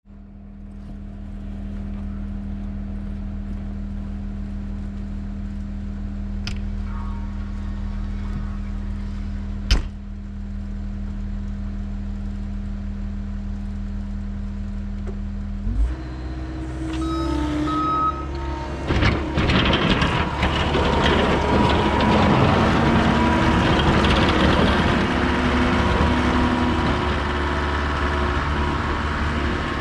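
John Deere 325G compact track loader's diesel engine idling steadily, with one sharp knock about ten seconds in. About sixteen seconds in the engine speeds up and the loader moves off, with a loud, noisy clatter of tracks and plow.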